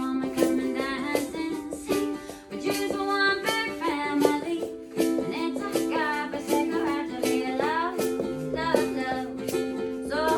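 Live song: a strummed stringed instrument playing steady chords with a voice singing the melody over it.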